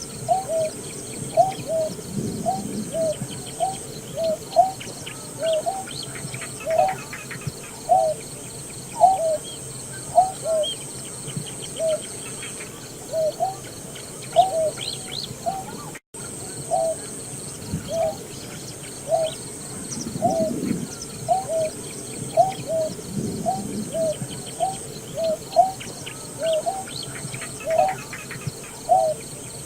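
Greater painted-snipe giving a long series of short, low hooting notes, each with a quick upturn at the end, repeated about once or twice a second.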